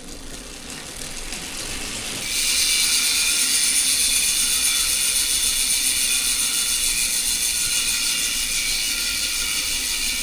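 Freehub of a DT Swiss-powered Specialized Roval rear wheel buzzing as the wheel freewheels: a fast, even ratcheting. It builds over the first two seconds, jumps louder a little after two seconds in, then holds steady.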